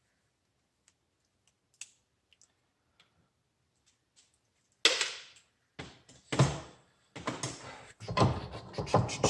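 Near silence with a few faint clicks, then from about five seconds in a run of loud knocks and clattering: plugs, scrap parts and tools being handled and set down on a workbench.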